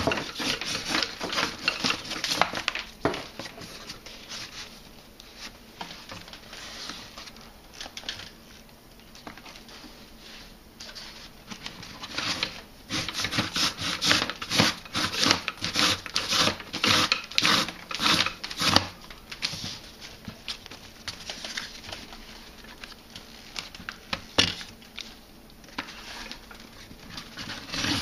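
Fibre rush, a twisted paper cord, being pulled hand over hand through the middle of a woven rush chair seat: dry rustling and scraping of the cord against the weave in quick repeated strokes. The strokes come thickest at the start and again from about halfway through to two-thirds of the way, with quieter stretches between.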